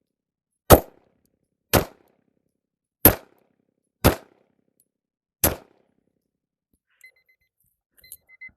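SIG P320 X5 pistol firing five single shots, about one to one and a half seconds apart, during a timed string of fire. Near the end there is faint, short, high-pitched beeping.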